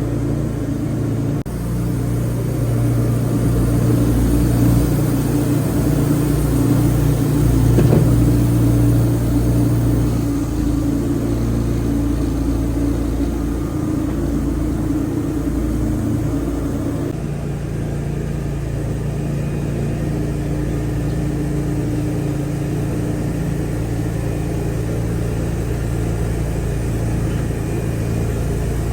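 Wood-Mizer LT40 portable bandsaw mill running steadily, its engine under load while sawing pine boards. The sound is heavier and louder from about two seconds in, then eases to a lighter, steady note at about seventeen seconds.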